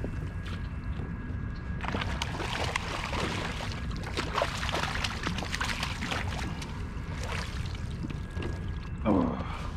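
Hooked redfish splashing and thrashing at the surface beside a kayak as it is brought to the landing net, in irregular noisy bursts over a steady low rumble. Near the end comes a short, loud sound that falls in pitch.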